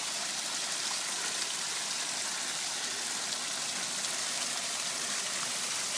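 Small backyard garden waterfall splashing steadily into its pond, an even rush of running water.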